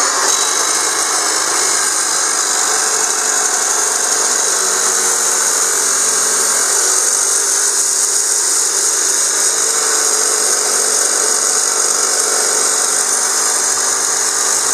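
Abrasive chop saw cutting through a thick rusty steel pipe clamped in its vise: a loud, steady high-pitched whine and grinding of the wheel in the metal, throwing sparks.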